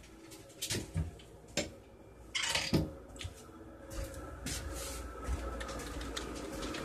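A series of knocks and bumps, like doors and household objects being handled, with a short scrape about two and a half seconds in and a faint steady hum underneath.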